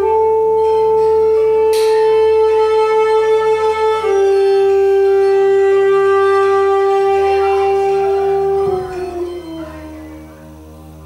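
Solo saxophone playing long held notes: one note for about four seconds, a step down to a lower note held about as long, then a slide downward that fades to soft near the end.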